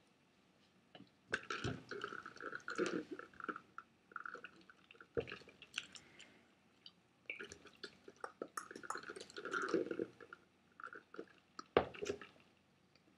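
Close-up chewing of a mouthful of chicken mayo burger, wet irregular mouth noises in two long runs with a few sharp clicks between them.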